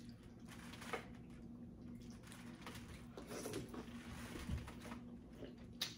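Faint eating sounds from a seafood boil eaten by hand: quiet chewing and food handling with a few small clicks, over a low steady hum.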